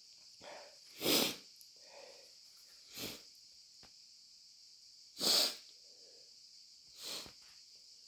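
A person sneezing wetly several times: the two loudest sneezes come about one and five seconds in, smaller ones near three and seven seconds, with soft intakes of breath between them.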